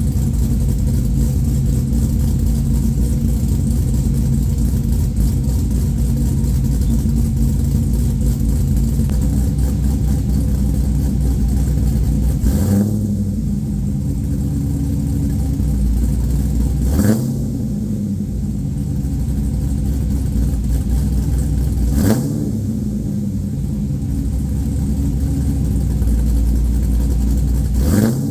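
An LQ4 6.0-litre V8 in a Pontiac Trans Am is running loud through a 4-inch exhaust with a hot cam, with a little belt chirp from the accessory belt. It idles steadily for about twelve seconds, then the throttle is blipped four times, roughly every five seconds, each a short quick rise in revs.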